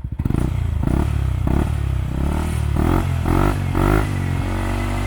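Yamaha NMAX scooter's single-cylinder engine revved in several short throttle blips over its idle, through a JVT V3 adjustable exhaust set to its quietest level, which sounds close to a stock pipe.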